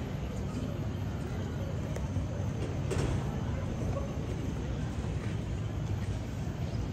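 Steady low outdoor rumble with faint distant voices underneath.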